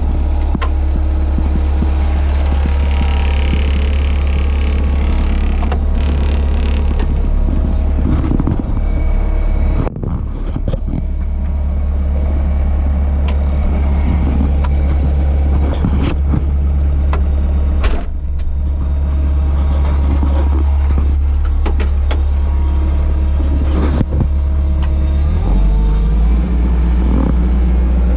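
1988 Bobcat 743 skid steer's engine running steadily while it works stone, with a few sharp knocks from the machine. The engine note shifts near the end.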